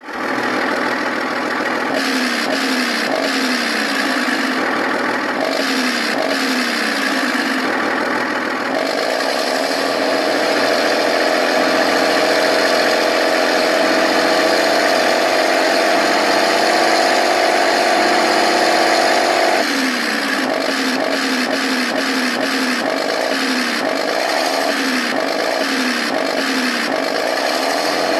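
RC tank's TK60-class electronic sound board playing a simulated tank engine through its small speaker. It idles with a repeating chug, shifts to a steadier, higher-pitched run at about nine seconds, and drops back to the idle chug at about twenty seconds.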